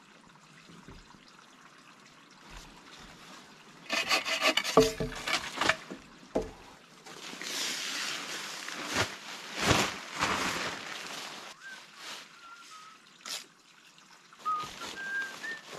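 Rustling and scraping of a tarp and bedding being handled on a log-and-stick shelter platform, with a cluster of wooden knocks about four seconds in and a longer swell of rustling in the middle. A few short high tones come in near the end.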